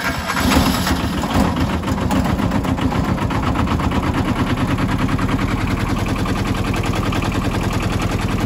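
Kubota T1600 mower's small two-cylinder diesel engine starting up and then running steadily with a rapid, even knock of firing pulses.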